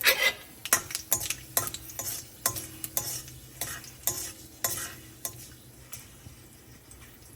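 Mustard seeds and a red chili sizzling in hot oil in a pan as they are stirred, with sharp clicks about twice a second that thin out near the end.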